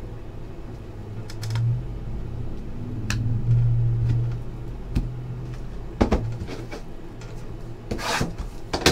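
Handling noise at a table: a few light knocks as cards and boxes are set down and picked up, then scraping and rustling near the end as a sealed trading-card box is handled and its plastic wrap is cut. A low hum comes and goes in the first half.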